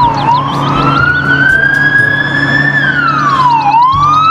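Police car sirens: a slow wail that climbs for a couple of seconds, drops sharply about three and a half seconds in and climbs again, with a second, faster sweeping siren over it at the start and near the end.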